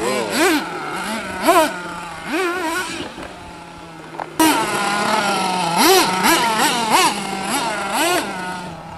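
Small nitro engine of a radio-controlled monster truck revving up and down in quick bursts over a steady idle. It drops to a quieter idle about three seconds in and comes back loud and abruptly about four and a half seconds in.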